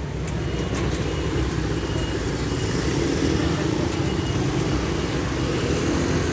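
Steady road traffic: motor scooters and cars running along the street, a continuous low rumble with no single standout event.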